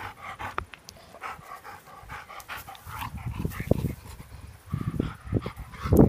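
A 15-year-old Labrador retriever panting, then rolling on his back on grass, with louder irregular rustling and scuffing from about halfway through.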